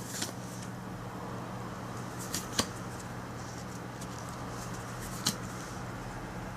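Trading cards being handled and flipped through, with a few short crisp card snaps just after the start, about two and a half seconds in, and again past five seconds, over a steady low hum.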